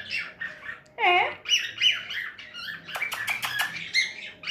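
Pet bird squawking and chirping in a string of short, bending calls, with a quick run of clicks about three seconds in.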